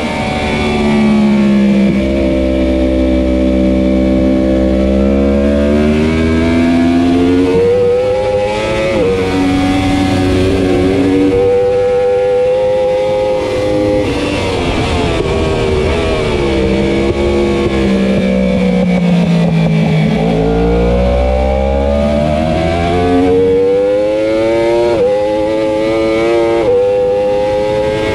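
2015 Yamaha R1's crossplane inline-four racing engine at full speed, heard from onboard over wind rush. Its pitch holds and steps a few times, falls steadily for several seconds past the midpoint as the bike slows, then climbs again with brief breaks near the end as it accelerates hard.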